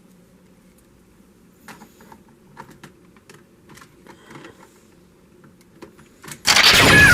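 Henshin belt sound effects: a faint low standby hum with a scattering of sharp plastic clicks, then about six and a half seconds in a sudden loud burst whose pitch sweeps steeply downward.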